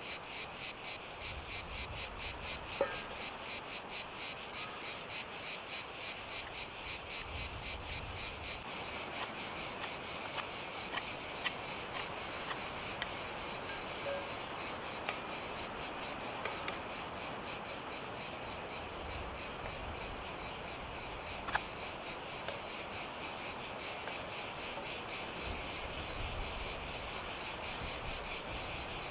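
Insects chirping in a steady rhythm, about three pulses a second, with a few faint light clicks now and then.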